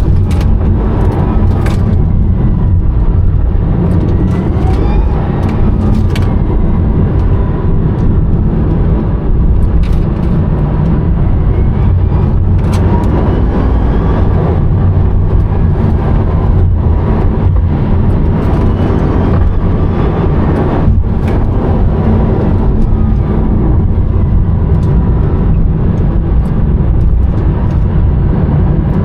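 Cabin sound of a Rimac Nevera four-motor electric hypercar on the move: heavy, steady road and wind rumble with a faint electric-motor whine that rises and falls in pitch, and a few short knocks.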